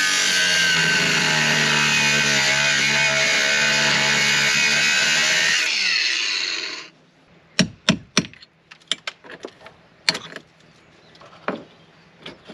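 Small angle grinder cutting through a corroded nut, running steadily for about six seconds, then switched off and spinning down. After that, a scatter of short sharp knocks and clicks.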